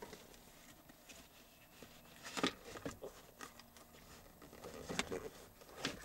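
Soft rustles and a few short knocks of a car trash can being handled and fitted over the centre console, the clearest knocks about two and a half seconds in and near the end.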